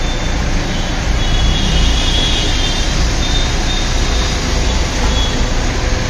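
Steady low rumbling noise, with faint high whistle tones coming and going.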